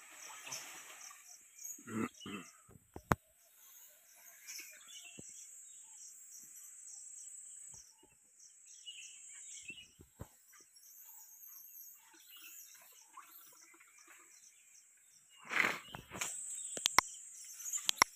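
Insects shrilling steadily in the forest. Gray langurs move through the tree branches, with leaves and branches rustling in bursts and a few sharp knocks. The loudest rustling burst comes about three-quarters of the way through.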